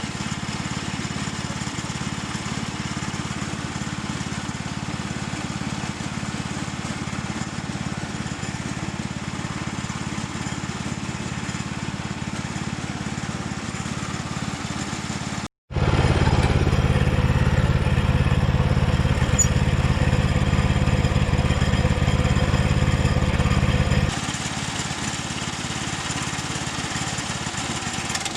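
Small gasoline engine of a sawmill running steadily while milling planks. About halfway through there is a sudden short break, then it runs louder for about eight seconds before dropping back to the earlier level.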